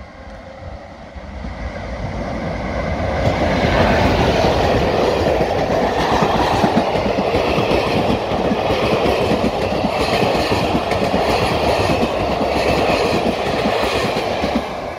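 Moroccan ONCF passenger train hauled by an electric locomotive, approaching and then passing close by. The rush of wheels on rails builds over the first few seconds, then the coaches roll past with a steady clickety-clack, easing slightly near the end.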